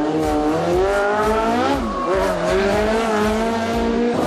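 Small VolkiCar race car's engine revving hard while it is driven round a tight course. Its pitch climbs over the first two seconds, dips briefly as it lifts off, then picks up again and holds.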